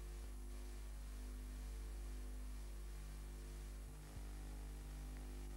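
Steady low electrical hum with tape hiss and no programme sound, from a soundless video tape transfer. A brief dropout with a click about four seconds in.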